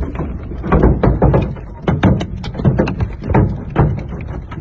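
Hailstones clattering on a car's windshield and roof, heard from inside the car: a dense, irregular patter of sharp impacts over a low rumble.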